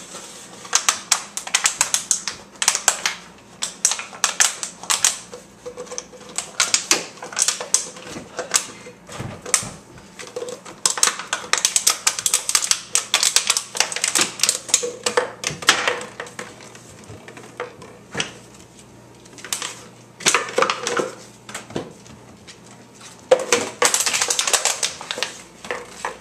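Empty plastic water bottle crackling and clattering on a hardwood floor as a puppy bites, paws and pounces on it, in bursts of rapid clicks with short pauses between.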